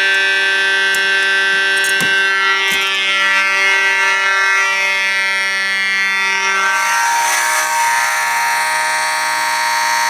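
Fire alarm horns, an Edwards 892-2B electromechanical horn and a Simplex 2901-9806 horn, sounding together in a loud, steady, buzzy blare during a fire alarm system test.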